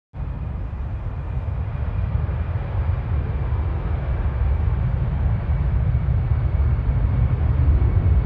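A steady low rumble that starts abruptly and slowly grows louder, with a faint thin tone above it.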